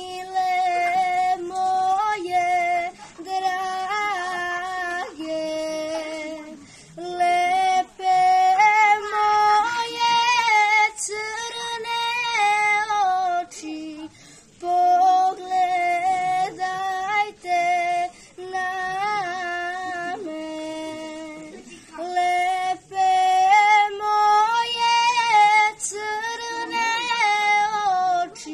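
A young girl singing a Serbian folk song solo and unaccompanied, in melodic phrases of a few seconds with short breaks for breath.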